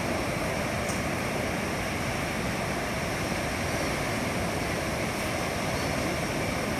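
Ocean surf on a beach, a steady rushing noise of breaking waves that holds even throughout.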